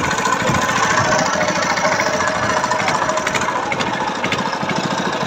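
Boat's Petter diesel engine running steadily with a fast knocking beat.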